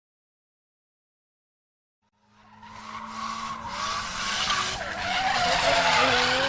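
About two seconds of silence, then a vehicle braking hard: a long skidding screech that builds up and wavers in pitch.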